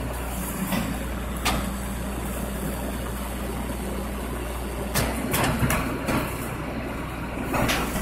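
Rear-loading garbage truck idling with a steady low hum, with scattered sharp clicks and knocks. Louder rattling noise builds near the end.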